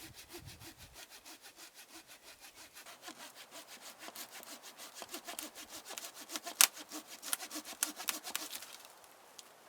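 Hand saw cutting through wood in quick back-and-forth strokes, about four a second, growing louder as the cut goes on and stopping near the end.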